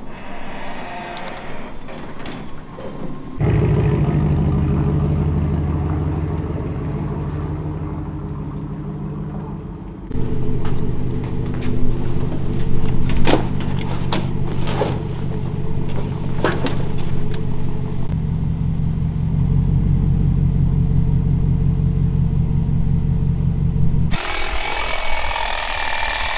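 Pickup truck engine running, heard in several stretches joined by abrupt cuts, with a few sharp clicks and knocks a second or two apart in the middle. Near the end the engine gives way to a broad rustling hiss.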